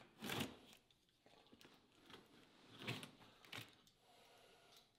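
Utility knife slicing the packing tape on a cardboard box: a few short, faint scraping strokes with quiet between.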